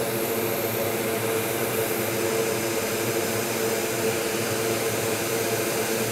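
Hot air rework station blowing steadily, a constant airy rush with a fan hum, while it heats a replacement IC to reflow it onto a MacBook Air logic board.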